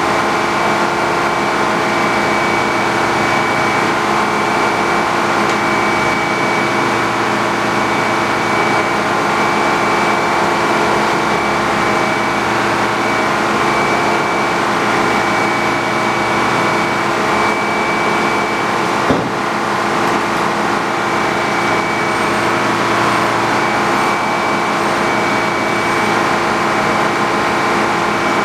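A sawmill running steadily at a constant speed, a loud droning hum with a steady high whine over it, and a single sharp click about two-thirds of the way through.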